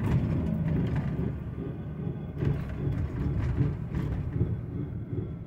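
2006 Ford F-150 4x4 on the move with a rhythmic rumbling noise from the driver's-side front wheel over its road noise. It is a sign of a front hub fault, which the mechanic suspects is the 4x4 hub not seating properly with its actuator, or a worn hub bearing.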